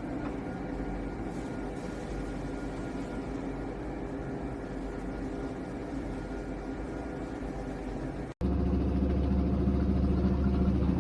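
Toshiba top-load washing machine running, a steady mechanical hum from its motor and gear clutch. About eight seconds in the sound cuts out for an instant and comes back louder and deeper.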